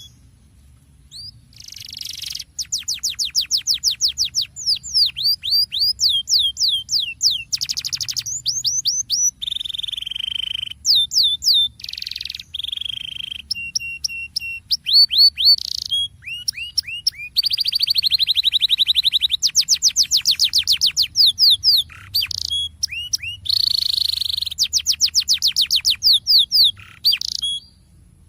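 Domestic canary singing a long rolling song of fast trills, each run of rapidly repeated notes lasting a second or two before switching to another, with brief gaps between runs. The song starts about two seconds in and stops just before the end. This is the kind of canary "roll" played to prompt other canaries to sing.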